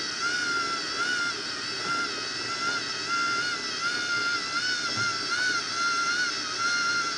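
The robotic chess board's motor drive under the board whining steadily as it carries a pawn back into place, its high pitch wavering gently up and down.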